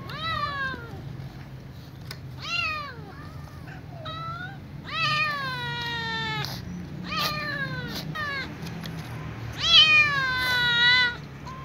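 Kittens, a ginger-and-white one among them, meowing for food: about six drawn-out meows, each falling in pitch, the loudest and longest near the end. A steady low hum runs underneath.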